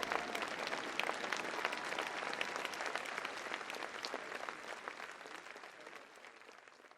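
Crowd applauding, with dense clapping that fades away steadily toward the end.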